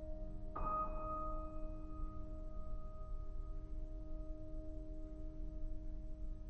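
Slow soundtrack music: a soft piano chord struck about half a second in and left to ring out, over a low steady hum.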